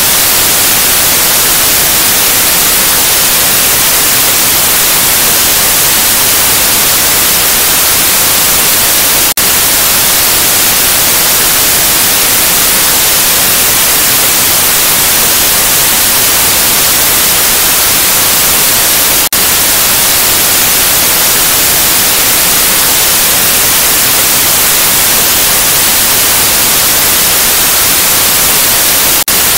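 Analog television static: a steady, loud white-noise hiss, strongest in the high end, with a brief dip in level about every ten seconds.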